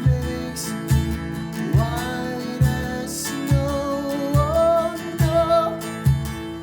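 Worship music: a strummed acoustic guitar keeping a steady beat, with a sung melody over it.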